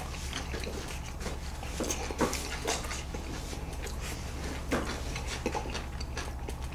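Eating sounds: chewing, with small clicks of a fork and chopsticks against the dishes, over a steady low hum.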